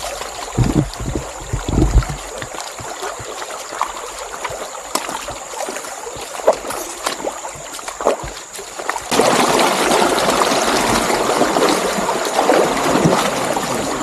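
Flowing stream water, a steady rush that becomes abruptly louder and fuller about nine seconds in. A few low thumps come in the first two seconds.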